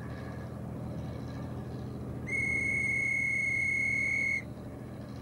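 A steady low mechanical hum fades in. About two seconds in, a loud high-pitched steady whistle tone sounds for about two seconds and cuts off suddenly over the continuing hum.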